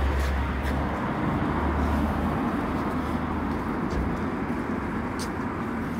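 Street traffic noise: a motor vehicle running close by, with a steady low rumble under a wash of road noise.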